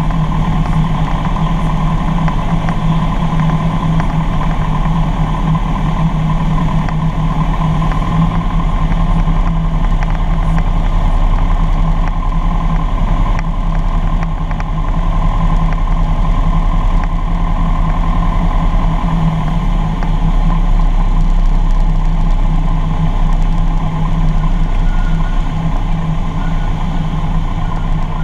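Piston engine and propeller of a single-engine light airplane, heard inside the cabin as a steady, loud drone during the low approach to landing.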